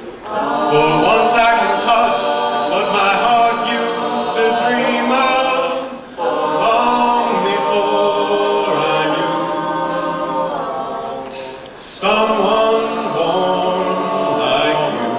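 Male a cappella group singing: a lead voice over the group's backing harmonies, with no instruments. It goes in three phrases, with brief breaks about six and twelve seconds in.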